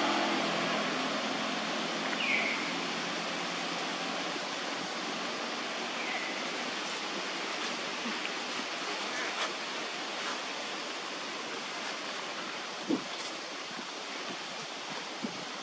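Steady rushing outdoor background noise, with two brief high squeaks that fall in pitch, about two and six seconds in.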